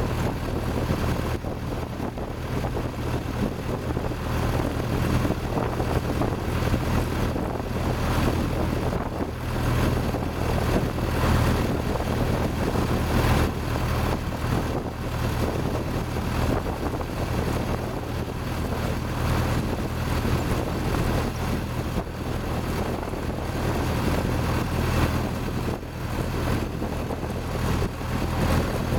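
Ford Model T's four-cylinder flathead engine, freshly rebuilt, running steadily under load as the car drives along, its low drone mixed with a hiss of wind and road noise.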